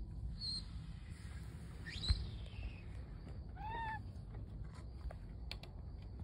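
A cat gives one short, arched meow a little under four seconds in. About two seconds in there is a thump, the loudest sound, with a brief high squeak around it.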